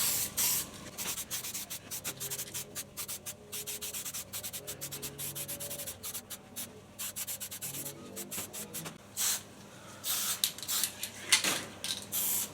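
Aerosol spray paint being sprayed in many short quick bursts, several a second, with a few longer hisses near the start and toward the end.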